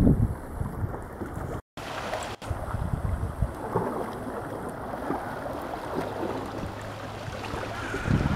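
Wind buffeting the microphone over open water; the sound cuts out briefly about two seconds in. After that, small waves lap and splash against the rocks at the water's edge, under steady wind noise.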